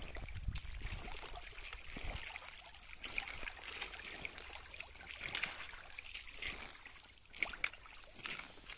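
Hiking boots splashing step by step through shallow water flowing over a gravel track, with gravel crunching underfoot toward the end.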